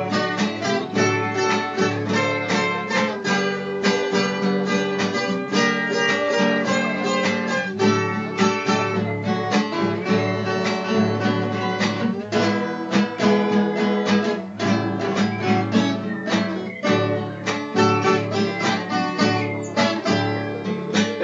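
Instrumental break of a Brazilian country song: a viola caipira picks a quick, busy run of plucked notes with a steady strummed string accompaniment.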